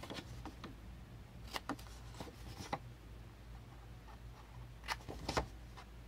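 Small craft scissors snipping cardstock, notching the corners of a scored pocket piece: several short, faint snips in small groups with pauses between them.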